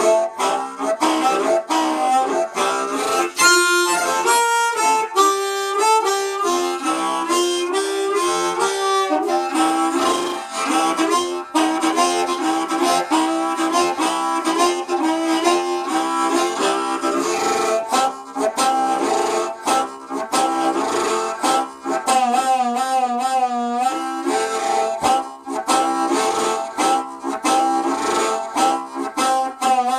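Harmonica playing a continuous melody of quick changing notes, with a wavering vibrato on some held notes in the last third.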